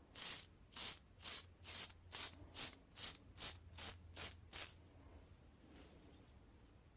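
3D-printed safety razor scraping through four days of lathered stubble in short, crunchy strokes, about two a second. The strokes stop about four and a half seconds in.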